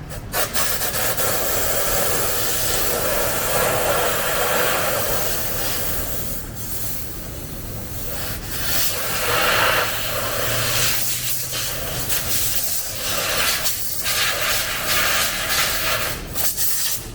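Compressed-air blow gun hissing in long blasts into a hole in a car body, blowing out debris, with a few short letups between blasts.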